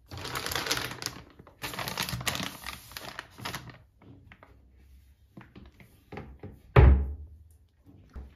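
Plastic wrapping of a wet-wipes pack rustling as it is pushed onto a cabinet shelf, in two stretches, followed by a few small clicks. About seven seconds in, a single loud thunk as the cabinet door shuts.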